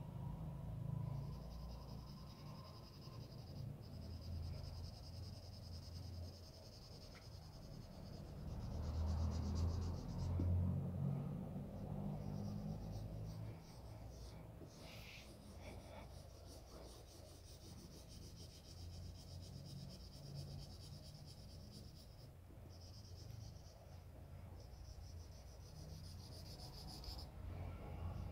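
Marker tip drawing on illustration board: a high, scratchy squeak in long stretches of strokes with short pauses between them. Under it is a low rumble from the handheld phone, strongest about ten seconds in.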